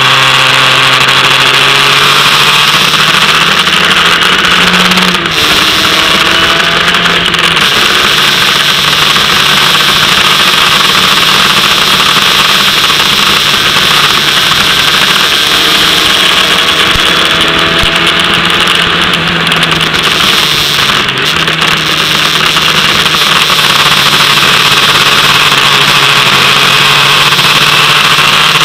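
Formula Ford single-seater's engine running hard, heard through its onboard camera. The revs rise and fall, with a sharp gear change about five seconds in and another about twenty-one seconds in, under a loud rush of wind and spray.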